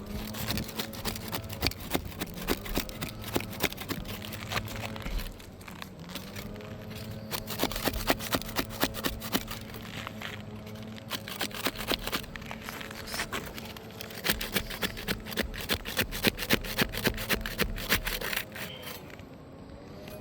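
Asphalt roof shingles crackling and scraping in rapid clusters of clicks as they are lifted and handled, over a steady low hum.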